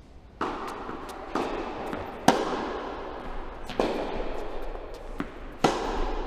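Tennis rally: sharp cracks of racket strings striking the ball, mixed with ball bounces on the court, about one to two seconds apart. Each hit echoes through a large indoor hall. The loudest strikes come about two seconds in and near the end.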